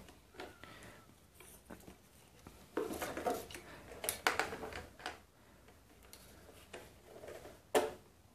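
Small plastic clicks, knocks and rustling as a digital multimeter and its test leads are handled, with a sharper click near the end.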